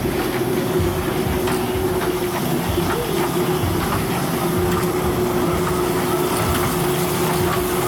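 Small kiddie ride train running along its track, with a steady whine and a few scattered clicks.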